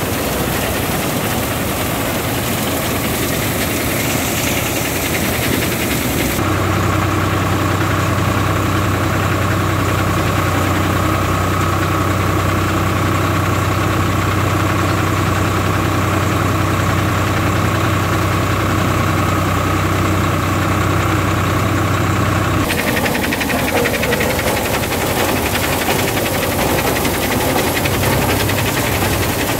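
Swaraj 744 FE tractor's three-cylinder diesel engine running steadily under load, driving a wheat thresher, with the thresher's noisy mechanical din mixed in. About six seconds in, the engine's steady hum with a clear whine comes to the fore. About 22 seconds in, it gives way again to the noisier thresher sound.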